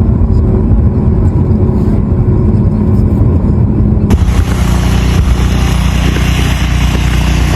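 A motor vehicle's engine running, a steady low drone with a hum. About four seconds in the sound cuts abruptly to a steady rushing noise over a continuing low drone.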